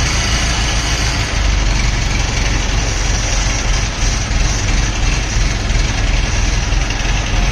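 Diesel engine of an ACE mobile crane running steadily under load as the crane lifts a heavy machine tool; its low note grows stronger about a second in.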